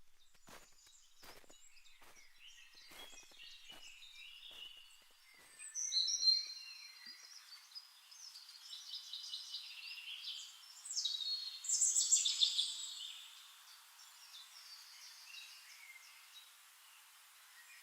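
Birds chirping and calling in short bursts, loudest about six seconds in and again around eleven to thirteen seconds in, with a few faint clicks over the first few seconds.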